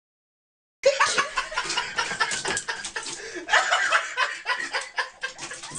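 After about a second of silence, sound cuts in abruptly with people laughing and chuckling.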